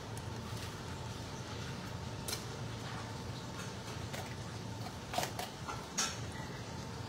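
Knife scraping and tapping against a fish on a counter as the fish is cleaned: a few sharp clicks, the loudest about five and six seconds in, over a steady low hum.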